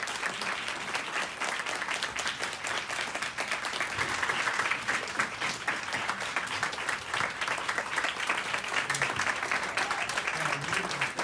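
Audience of a few dozen people applauding, many hands clapping at once, growing a little louder a few seconds in.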